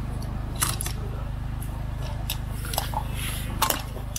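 A few short, light clicks and knocks over a steady low hum, as the prone shooter settles on the rifle; no shot is fired.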